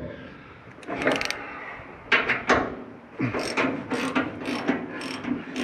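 Ratchet spanner clicking as it is worked back and forth. Two short runs of clicks come first, then an even run of about three clicks a second from about three seconds in.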